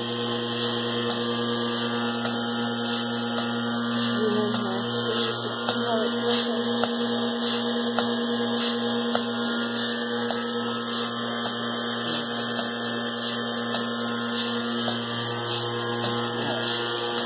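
Milking-equipment clean-in-place washer running with a steady electric hum while it circulates hot wash water through the milking claw and hoses.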